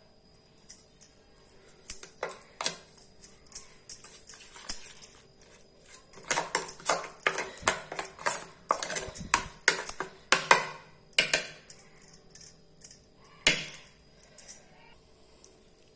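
A metal spoon stirring and scraping a thick spice paste in a stainless-steel bowl, with irregular clinks and scrapes against the steel that come thickest in the middle few seconds.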